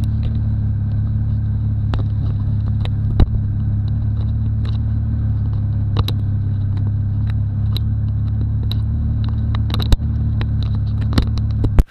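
Rally car engine idling steadily, heard from inside the cabin, with scattered sharp clicks and knocks. The sound cuts off abruptly near the end.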